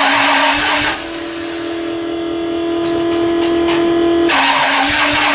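1968 Ford Torino engine running cold, heard at the tailpipe: a steady exhaust rush over a constant whine. About a second in the rush abruptly drops to a smoother, even hum that builds slightly, and the full rush comes back about a second before the end.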